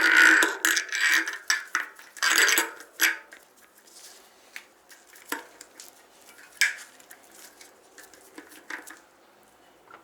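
Steel bolt, socket and bicycle hub parts clinking and scraping as they are handled and fitted together, setting up a bolt-and-socket press to push out a hub bearing. A busy run of clinks at the start and another about two seconds in, then a few single clinks.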